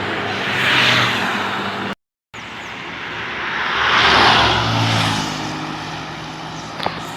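Buses passing close by: engine and tyre noise swelling and fading, twice, with a brief dropout to silence about two seconds in. A sharp click comes near the end.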